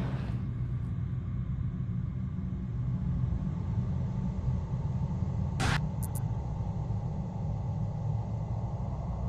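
Steady low rumble, with a short hiss about five and a half seconds in followed by two quick clicks.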